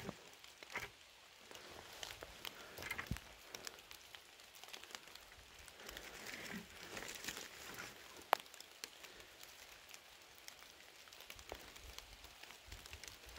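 Quiet forest ambience: faint, scattered ticks and crackles from the leaves and forest floor, with one sharp click a little past the middle.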